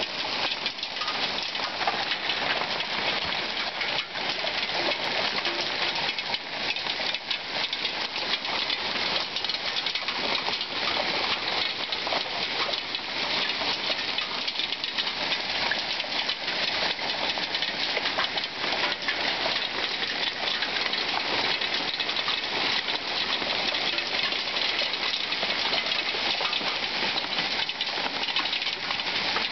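Hail falling heavily: a dense, steady patter of countless small impacts, like heavy rain on a hard surface.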